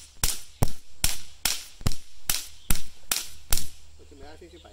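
Firework electric matches (e-matches) firing one after another in a live-fire batch test: a rapid series of sharp pops, about two or three a second, stopping about three and a half seconds in.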